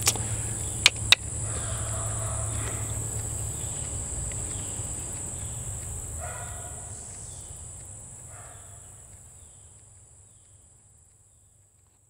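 Steady high-pitched insect chirring with a low hum beneath it, two sharp clicks about a second in and a few faint calls halfway through; the whole ambience fades out to silence near the end.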